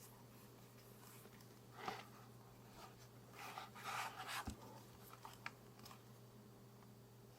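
Faint handling sounds: a brief scrape about two seconds in, a longer rustling scrape in the middle, and a few small clicks, over a low steady hum.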